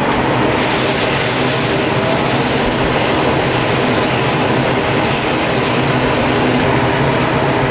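Steady loud hiss of food frying in a pan, with a low steady hum underneath like a kitchen range-hood fan running.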